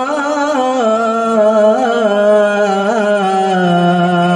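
Qawwali singing: one voice draws out a long, ornamented note with small wavering turns, settling into a steady held tone near the end, with no drum heard.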